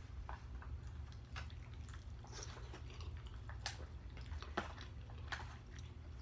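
A person chewing soft pasta, with scattered irregular mouth clicks, over a steady low hum.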